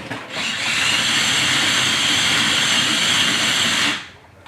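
Small electric motor and gears of a toy remote-control car whirring with a high whine as it drives, starting just after the beginning and cutting off about four seconds in.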